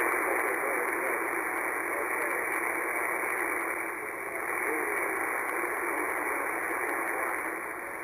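Single-sideband shortwave reception on 20 m through an Icom IC-746Pro: a steady rush of band static confined to the narrow voice passband, with a weak, barely readable ham operator's voice buried in the noise.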